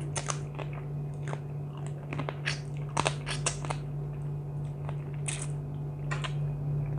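A person biting and chewing crab, with many sharp crunches of shell scattered through, over a steady low hum.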